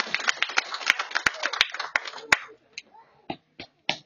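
A small crowd applauding. The clapping dies away a little past halfway, leaving a few scattered single claps.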